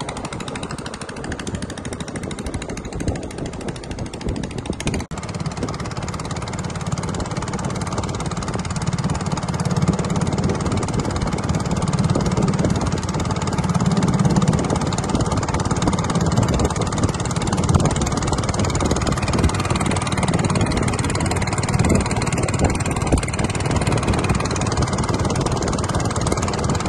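Small river boat's engine running steadily under way, growing louder and stronger from about five seconds in, with a steady rush of noise over it.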